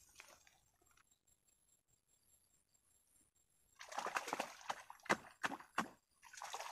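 Water splashing and sloshing at a pond's edge as a hook line is set in the shallows, in a cluster of short bursts about four seconds in and one more near the end.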